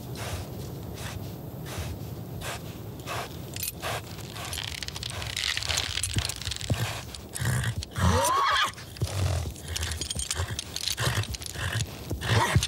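A horse shifting and stamping under a rider, with irregular hoof thuds and scuffs, and one short neigh with a gliding pitch about two-thirds of the way through.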